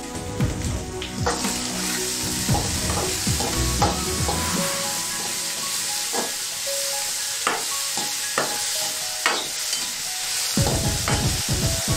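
Chopped tomatoes, brinjal and okra sizzling as they are sautéed in hot oil in a metal kadai, stirred with a spoon that scrapes and clinks against the pan many times. The sizzle grows louder a little over a second in.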